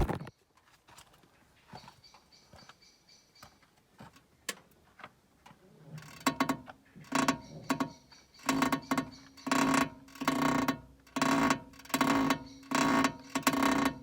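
Suspension of an MQB-platform car creaking in a steady rhythm, about one squeaky creak a second, starting about six seconds in after a few faint clicks. The owner takes it for a suspension squeak rather than one from the DSG gearbox.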